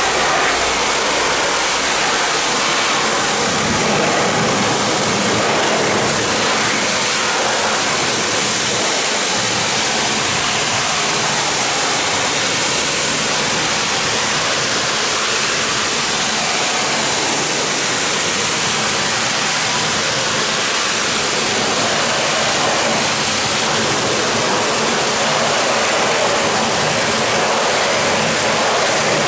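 Pressure washer spraying water in a steady, loud, unbroken hiss.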